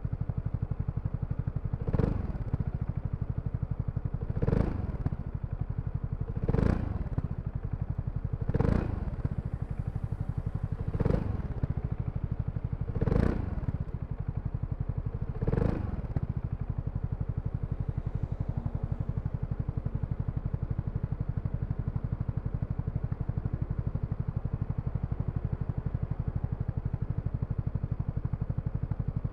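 BMW C400X scooter's single-cylinder engine idling. It gives seven short throttle blips about every two seconds, then settles to a steady idle about halfway through.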